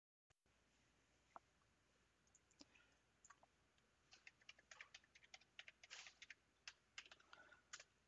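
Faint computer keyboard typing: a quick run of key clicks, densest from about four to six and a half seconds in, as an IP address is typed into a browser's address bar.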